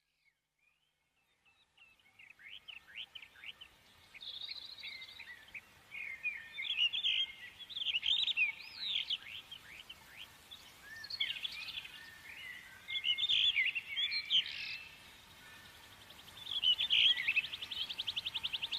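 Small songbirds chirping and singing in high, quick calls that come in bursts, with a rapid trill starting near the end.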